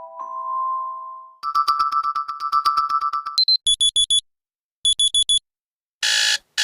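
Stock Android 7.0 alarm and notification tones played one after another. First the fading end of a chime, then about two seconds of fast electronic beeping on two close pitches, then two groups of four quick high beeps. A harsh buzzing tone starts near the end.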